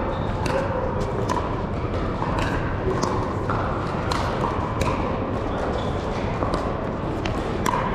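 Pickleball paddles striking a hard plastic ball: sharp pops at an irregular pace, several courts playing at once, over a steady hubbub of crowd noise in a large indoor hall.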